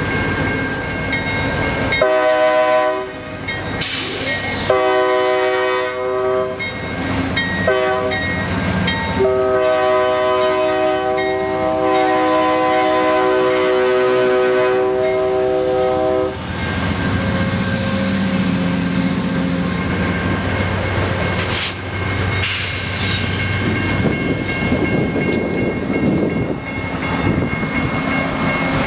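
Amtrak P40DC diesel locomotive's air horn sounding four blasts, the third short and the last held for about seven seconds. After the horn stops, the passing passenger cars rumble by.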